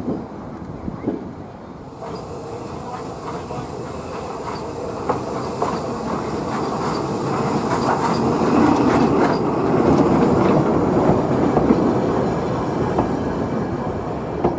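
Train running along the track, its wheels clicking over the rail joints amid a steady rumble, growing louder to a peak about two-thirds of the way through and then easing off.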